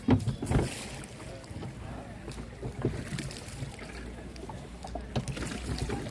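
Someone paddling a canoe: a few sharp knocks and splashes from the paddle strokes over a steady low rumble of wind on the microphone.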